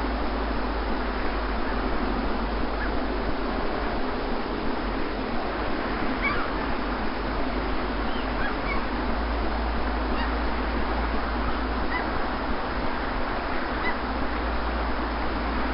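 Sea waves washing onto a beach in a steady rush, with faint short bird calls scattered through it.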